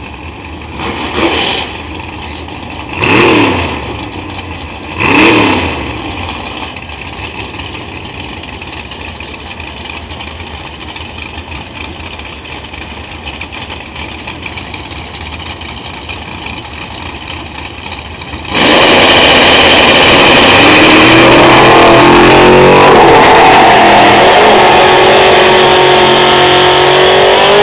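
Drag racing car engine blipped three times in quick revs, then running steadily at a lower level. About two-thirds through it becomes suddenly much louder as it runs at full throttle, its pitch climbing slowly.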